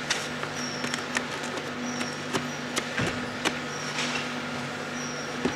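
Packing-line machinery running in a factory: a steady hum with a short high squeak that repeats about every one and a half seconds. Scattered sharp clicks and knocks sound over it, the loudest about three and a half seconds in.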